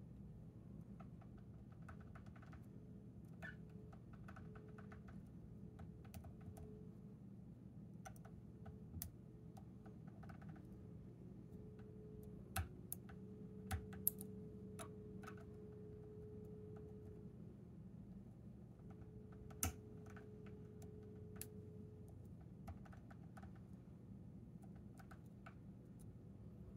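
Faint, irregular metallic clicking as a hook pick works the pins of a Chicago Lock Co tubular lock held under tension. A few sharper clicks come about halfway through, and one more a little later.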